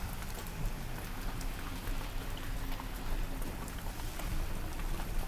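Wind rumbling on the microphone, with faint scattered clicks over it.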